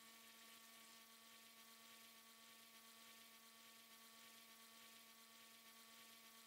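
Near silence: a faint, steady hum with hiss.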